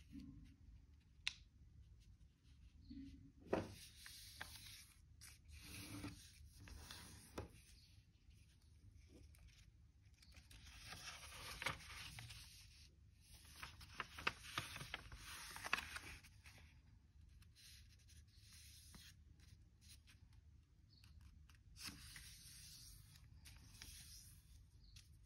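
A sheet of origami paper being folded by hand, faint throughout: the paper crinkles and rustles as it is opened out and refolded, and fingers press and slide along the creases. The rustling is densest in a stretch around the middle.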